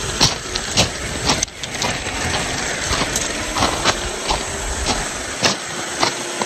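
Traxxas TRX-4 RC crawler running off-road: a steady hiss with a faint hum under it, broken by frequent sharp knocks and crunches, about one or two a second.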